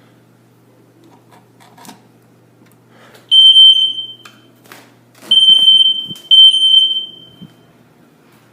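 Fire alarm sounder set to a 3,000 Hz tone giving three short, loud, high-pitched beeps, the second and third close together, each trailing off: the brief sounding of a fire alarm system in walk test mode. A couple of faint knocks come between the beeps.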